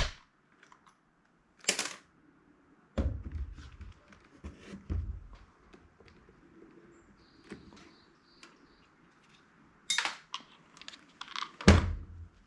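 Scattered clicks and knocks from handling a handheld inventory scanner's plastic housing, its screws and tools during a teardown. A few dull thumps come about three to five seconds in, and a sharp knock comes near the end.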